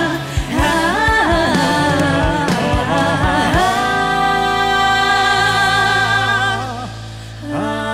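A woman singing a Cantonese pop song over backing music: a few sung phrases, then one long note held with vibrato for about three seconds, a short drop in loudness, and a new phrase starting near the end.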